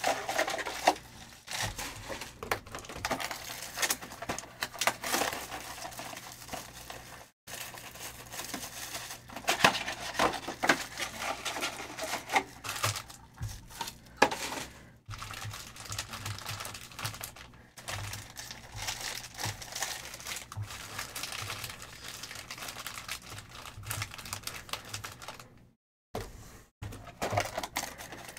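Trading-card hobby boxes being torn open and their wrapped packs handled: an irregular run of crinkling, tearing and light clicking of cardboard and pack wrappers, with a few short breaks.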